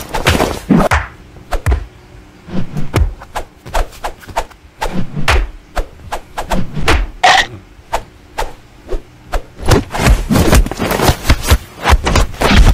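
Irregular slaps and thumps of a hand patting a leather sofa cushion while play-fighting with a kitten, mixed with the kitten scrambling on the leather. The strikes come in uneven runs, sparse in the middle and quickest near the end.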